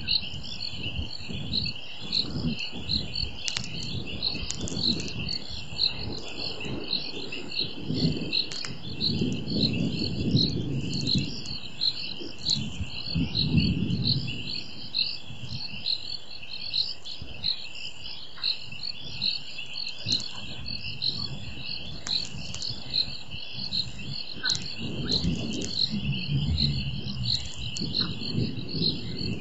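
Crickets chirring in a steady, pulsing chorus. Deep low sounds swell up several times, about nine seconds in, around thirteen seconds, and again near the end.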